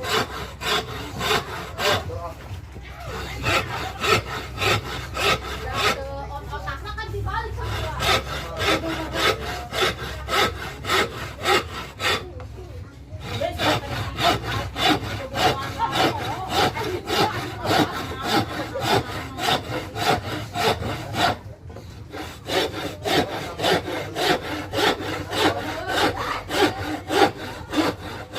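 Manual curve saw cutting a curve through wood, with back-and-forth strokes about two a second. The strokes stop briefly several times.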